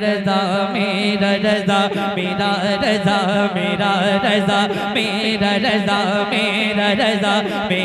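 A man singing a naat into a microphone, amplified, in a long, wavering, ornamented melodic line.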